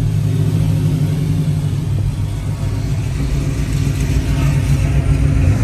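A classic Ford Mustang fastback's engine runs with a deep, steady low rumble as the car rolls slowly past at crawling speed.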